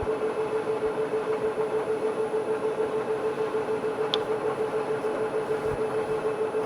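Bridgeport milling machine spindle running a carbide-insert face mill, powered through a variable frequency drive: a steady hum with a fast, even pulse. The table is being raised to touch the cutter off on the workpiece before zeroing Z.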